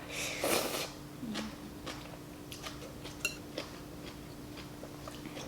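Close-up eating of noodle soup: a short slurp about half a second in, then scattered soft chewing and wet mouth clicks.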